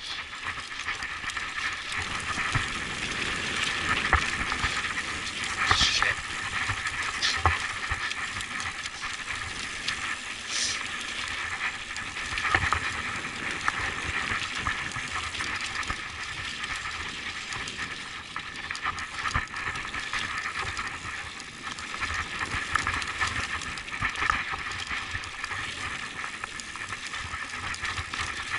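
Mountain bike rolling over sandstone slickrock: a steady hissing rush of tyre noise, with scattered knocks and rattles from the bike over bumps in the rock.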